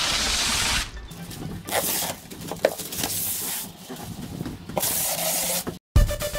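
Protective plastic film being peeled off PVC sandwich-panel window reveals, a hissing, crackling rip in several long pulls. Near the end it cuts off and electronic music starts.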